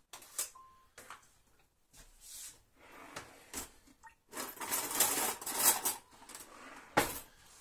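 Kitchen handling noises: several light clicks and clinks of containers and utensils, a louder rustling stretch in the middle, and one sharp knock near the end.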